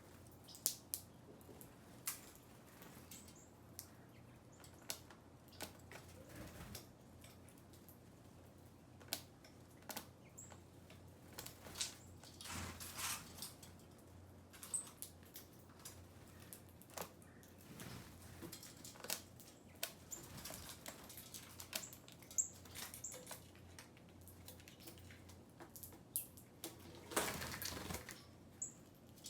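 Small birds feeding, making faint, irregular pecking taps and scuffles, with a couple of longer rustles of wings or movement.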